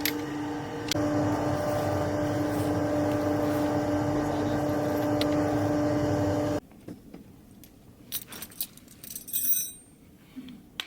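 A motor vehicle running steadily, a constant drone with a low rumble, which cuts off abruptly about six and a half seconds in; after that only faint clicks and rustling of things being handled.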